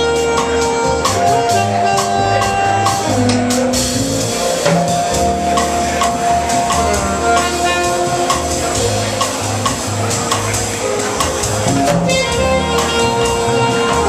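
Live jazz band playing a slow ballad introduction: a saxophone carries the melody in long held notes over piano, bass and drums, with light cymbal strokes.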